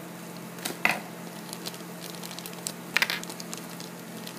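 Thin plastic blind bag crinkling as it is cut and pulled open by hand, with two short sharp crackles, one about a second in and one about three seconds in, over a steady low hum.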